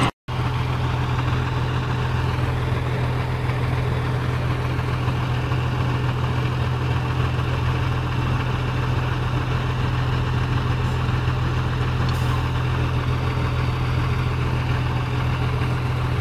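Tatra dump truck's diesel engine idling steadily at a low, even pitch, after a split-second break at the start.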